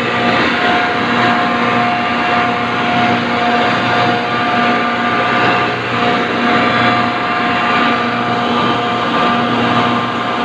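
Refrigeration compressors of an ice plant running: a loud, steady machine drone with a constant hum and several held whining tones.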